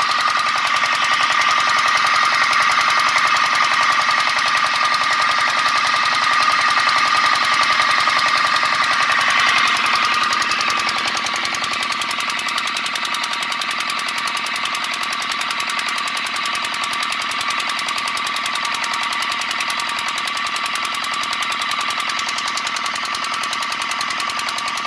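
Vehicle engine running with a fast, even ticking knock: the abnormal engine noise being diagnosed. It eases slightly about ten seconds in and then holds steady.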